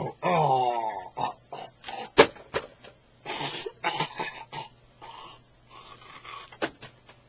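A person's voice drawing out a falling groan, then short breathy bursts like coughing, with a sharp click a little over two seconds in and a few smaller clicks.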